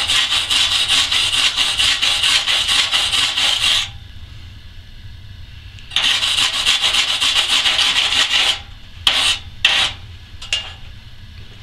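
Wire brush scrubbed fast back and forth over a freshly chipped 7018 stick-weld fillet on steel plate, clearing the last slag. There are two long runs of rapid strokes, about four seconds and then about two and a half seconds, with a pause between, then three short strokes near the end.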